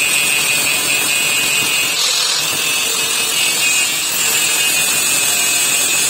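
An abrasive power tool running steadily under load, a continuous high hiss with no breaks.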